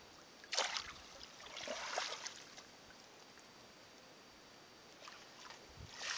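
Water splashing in a shallow muddy pool: a short splash about half a second in, a longer swish around two seconds, and a landing net swept along the water's surface near the end.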